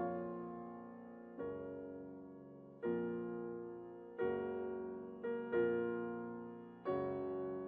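Slow, gentle piano music: chords struck about once every one to one and a half seconds, each left to ring and fade.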